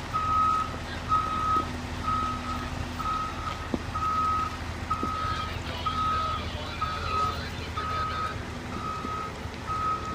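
Vehicle backup alarm beeping steadily at one pitch, about three beeps every two seconds, over a low running engine.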